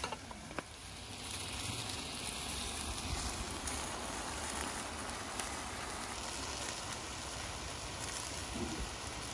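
Steady sizzling of pork frying in a large wok over a wood fire, rising slightly about a second in, with a faint click or two at the start.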